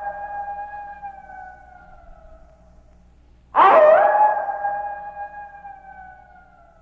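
Two long canine howls, each starting abruptly, holding a steady pitch and then sliding slowly lower as it fades; the second begins about three and a half seconds in.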